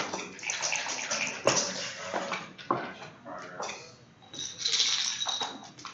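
Backgammon checkers and dice clicking and knocking as they are handled on the board, with a denser rattle about four and a half seconds in.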